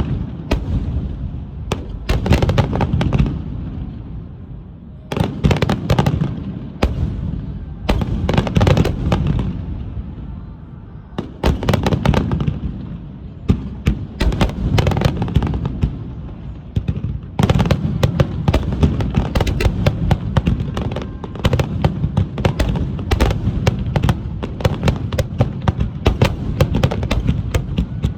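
Fireworks finale: rapid volleys of aerial shell bursts, booms and crackling coming in waves every two to three seconds, which merge into one continuous dense barrage about two-thirds of the way in.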